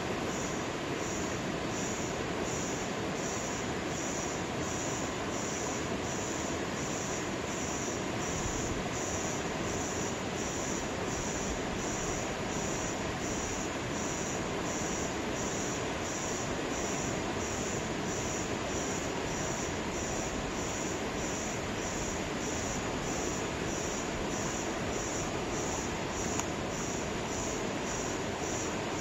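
Steady rushing of a muddy river flowing past, a constant even noise without breaks.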